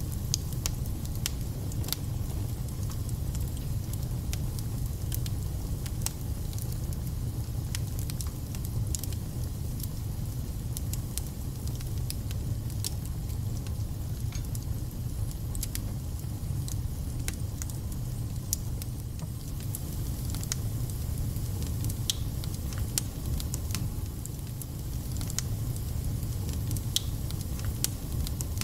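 Wood fire burning in a fireplace: a steady low rumble with frequent sharp crackles and spits.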